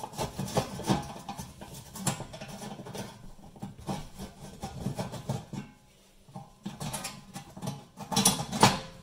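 A screwdriver turning out the screws of a steel oven fan cover panel: irregular scraping and clicking of metal on metal, with a louder clatter near the end as the panel is handled.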